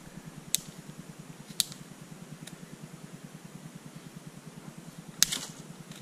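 Dry hollow twig cracking as it is snapped and split open by hand: three sharp cracks in the first two and a half seconds, then a louder splintering crack about five seconds in.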